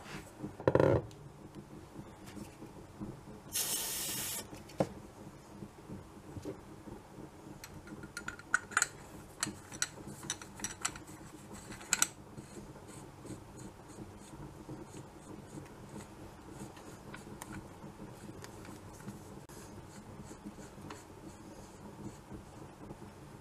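A knock from handling the part under a second in, then a short hiss of aerosol silicone oil spray lasting about a second, about four seconds in. After that a cloth rubs over the rifle's air cylinder part, with scattered light clicks and taps.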